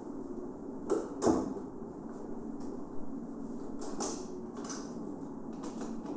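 A few sharp knocks and clicks, the loudest two close together about a second in and another about four seconds in, over a steady low hum.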